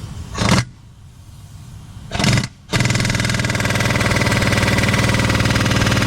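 A machine gives two short bursts, then runs steadily with a fast rattle from a little under three seconds in.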